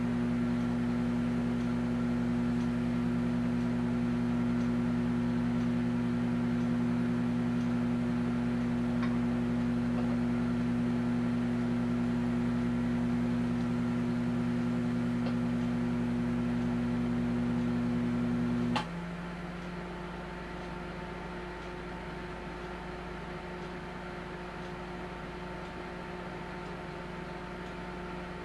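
Amazon Basics 0.7 cubic foot microwave oven running with a loud, steady hum while it cooks. About two-thirds of the way through, a click and the hum drops away as the cooking cycle ends, leaving a quieter steady hum, the cooling fan still running.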